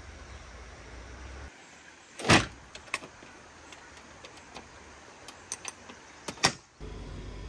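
A low steady rumble stops about a second and a half in. A single louder knock follows, then a scattering of small clicks and taps ending in a sharper click, and the rumble comes back near the end.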